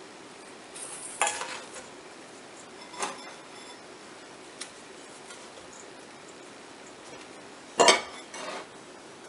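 Bath bomb mold half scooping and scraping through dry, crumbly bath bomb mixture in a stainless steel mixing bowl: a few short gritty scrapes and light knocks, the loudest near the end.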